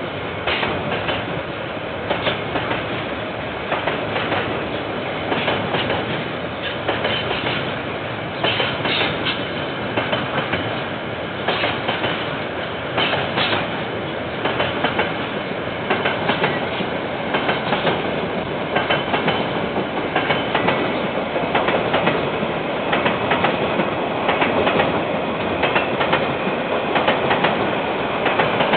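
Freight train wagons rolling past steadily, with repeated clicks from the wheels running over the track, heard through a security camera's microphone.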